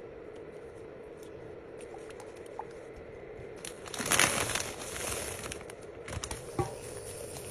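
Packaging crinkling and rustling as it is handled, loudest about four seconds in, with a few light clicks near the end over a steady faint hum.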